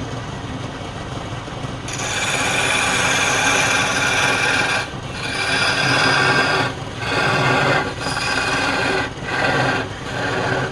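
Wood spinning on a lathe being scraped or sanded, a steady rasping hiss over a faint motor hum. It gets louder about two seconds in and then breaks off briefly every second or so, as the tool or abrasive is lifted and set back on.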